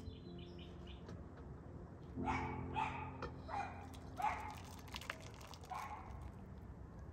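Several short animal calls, about six, between about two and six seconds in, over the fading tail of soft background music.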